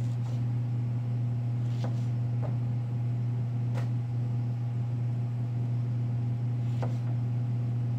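A steady low hum of machinery runs throughout. Over it come a handful of short knocks as a chef's knife cuts the tops and bottoms off navel oranges and strikes the cutting board.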